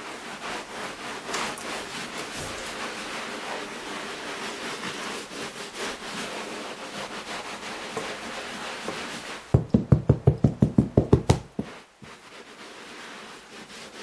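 Hand rubbing sand into deep-pile carpet: a continuous gritty scrubbing made of many quick strokes. About ten seconds in, a fast run of about a dozen dull thumps lasting some two seconds.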